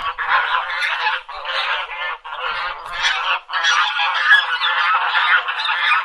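Several geese honking, many calls overlapping almost without pause, with short breaks about one, two and three and a half seconds in.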